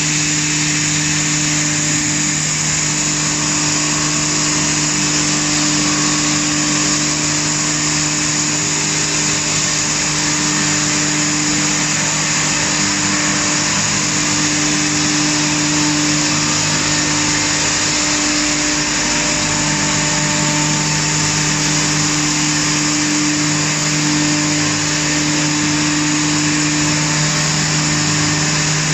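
Hammer mill grinding alfalfa hay at full run: a loud, even rushing noise over a steady low hum, with no break or change in speed.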